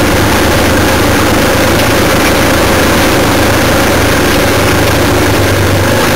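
Trail motorcycle engine running at a steady, low pace as it rides along a rough green lane, its pitch holding even with no big revs.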